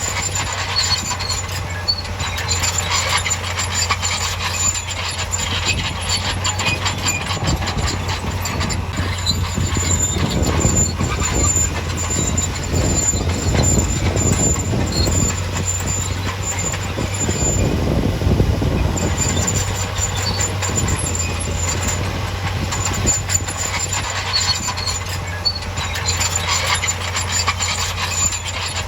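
Heavy construction machinery at work: a diesel engine running steadily under a dense metallic clatter and a thin high squeal, typical of a tracked machine such as a bulldozer. The engine rumble grows heavier for several seconds in the middle, as if under load.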